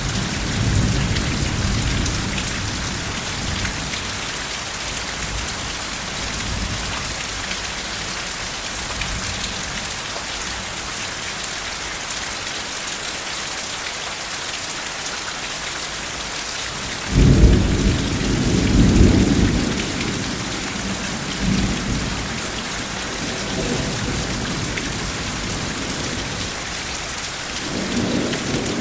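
Steady rain falling, with rolls of thunder: a low rumble at the start, a louder clap and roll a little past the middle, and fainter rumbles after it.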